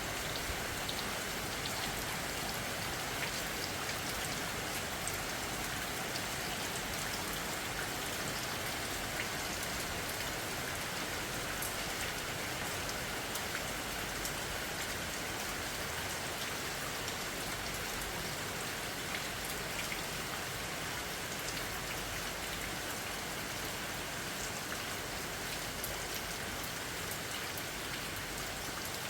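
Steady rainfall, with the patter of raindrops hitting surfaces and an even hiss.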